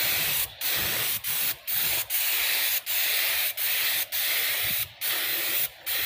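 Paint spray gun hissing in short strokes. The hiss is broken by brief pauses about every half second to second.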